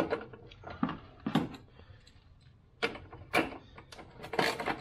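Hand tools worked and handled on metal in a car's engine bay: several sharp metallic clicks and knocks, with a quiet gap in the middle and a quicker run of clicks near the end.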